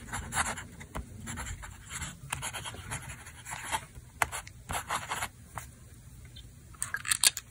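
Nahvalur Original Plus fountain pen nib scratching across paper in a quick run of short strokes as a line of words is written, easing off after about five seconds, with a few sharper sounds near the end.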